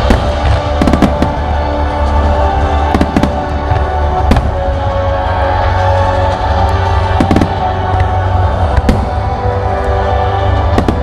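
Aerial firework shells bursting with repeated sharp bangs, several in quick succession, over music with sustained tones that accompanies the creative fireworks display.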